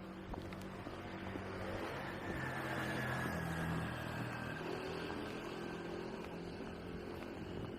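A motor vehicle passing by, its engine and tyre noise building to a peak about three seconds in and then easing off, with a faint falling whine as it goes past.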